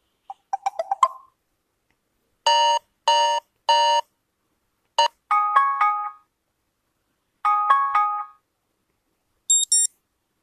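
UMX phone notification and alarm tones played one after another: a quick rising run of short plucked notes, three identical beeps about half a second apart, a short chime melody played twice, then a high two-note ding near the end, with silence between them.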